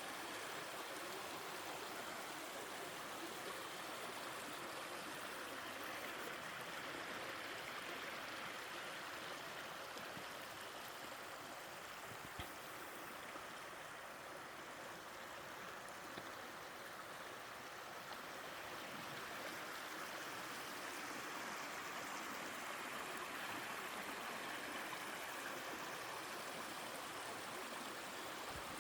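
Mountain stream flowing steadily, an even rush of water with no let-up. One brief click about twelve seconds in.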